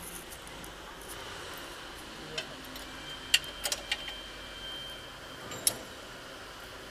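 Steel spanners clinking on a forklift mast's hydraulic hose fitting: one sharp metallic click, then a quick cluster of four around halfway, and one more near the end.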